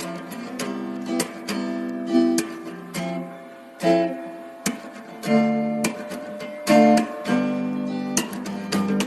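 Music: an acoustic guitar strumming and plucking chords.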